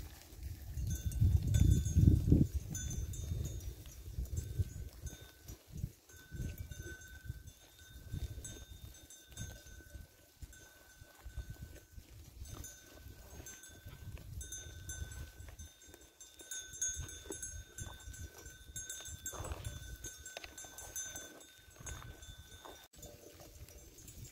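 Flock of grazing sheep with bells ringing, high tones that come and go, over a low rumble that is loudest in the first three seconds.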